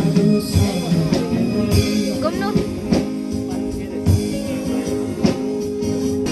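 A song with a singing voice, guitar and a drum beat.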